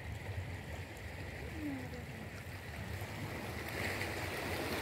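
Small waves washing steadily against a rocky seashore, a low, even wash that grows a little louder near the end.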